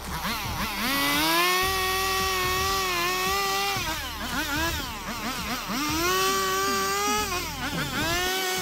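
Stihl two-stroke chainsaw at full throttle cutting a notch into a wooden pole. Its pitch sags and wavers as the chain bites into the wood, then climbs again. The engine drops back toward idle near the end.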